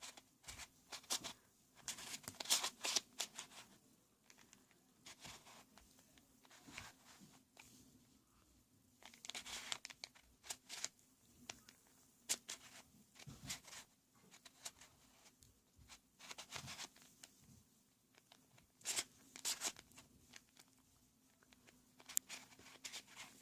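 Plastic twisty puzzle cube, a Rubik's Cube lookalike, being turned by hand: faint clicks and scrapes of its layers rotating, in short irregular bursts.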